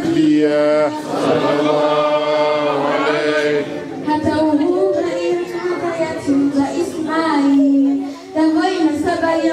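A group of voices singing a devotional chant unaccompanied, with long held notes that glide up and down.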